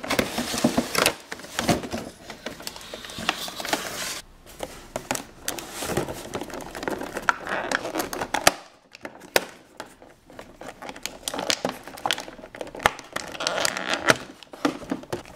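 Crinkling and clicking of plastic toy packaging as a plastic tea set is unpacked, with plastic saucers being pulled from a clear moulded plastic tray. There is a quieter lull a little past halfway.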